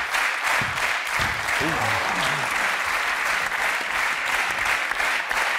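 Studio audience applauding steadily, with a voice heard briefly about a second in.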